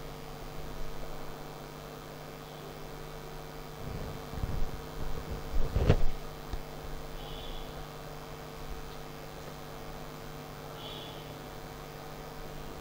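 Steady low electrical mains hum. Low handling rumble comes a few seconds in, ending in a single sharp knock around the middle. Later there are two faint short high squeaks, as a marker is drawn along the whiteboard.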